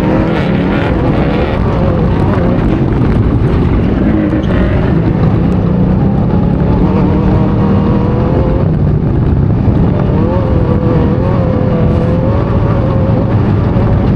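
Off-road race vehicle heard from onboard: its engine running hard, the pitch wavering up and down over a heavy low rumble.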